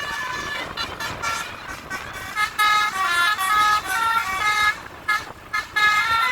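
Bus telolet (basuri) musical air horns playing a quick tune of short stepped notes, with several notes sounding together at times, as two horns play in duet. The horns break off briefly about five seconds in, then start again.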